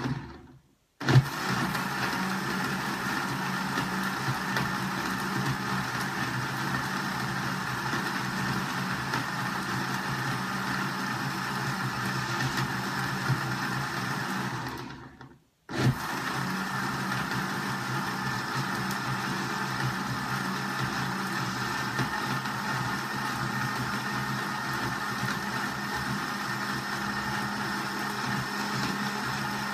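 Countertop electric blender running steadily as it grinds a mixture of hard tiger nuts. It stops briefly twice, just under a second in and again about halfway, and starts up again sharply each time.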